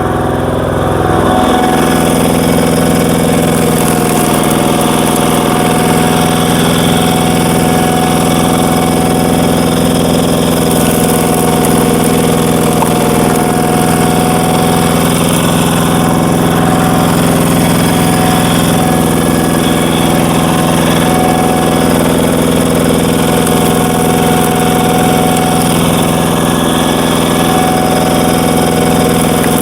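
Walk-behind power tiller's single-cylinder diesel engine running steadily. Its speed drops about a second in, then holds even.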